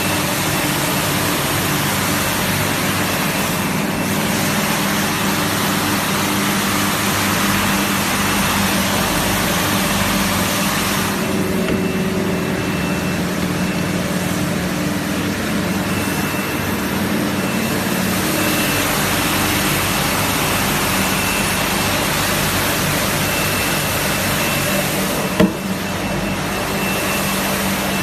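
Eight-roller automatic carpet-washing machine running: a steady mechanical rush with motor hum and an on-and-off high whine. There is a single sharp knock near the end.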